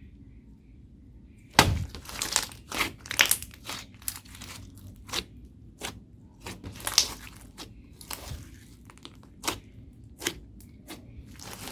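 Homemade slime with mixed-in bits being squeezed and stretched by hand, giving irregular sharp pops and crackles that start about a second and a half in.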